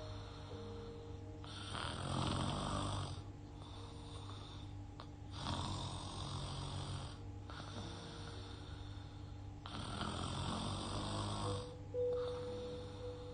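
A young woman snoring in her sleep through an open mouth: three long snoring breaths about four seconds apart, with quieter pauses between them. Faint background music with held notes sits underneath.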